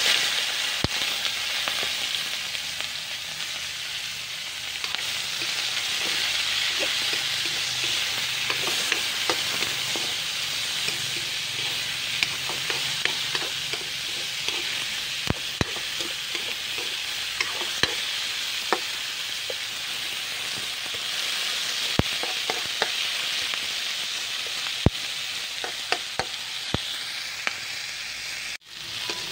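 Sliced onion, garlic, ginger and peppers sizzling in hot oil in an aluminium wok, a steady hiss that starts the moment they hit the oil. A spatula clicks and scrapes against the pan as they are stirred. The sound cuts out briefly near the end.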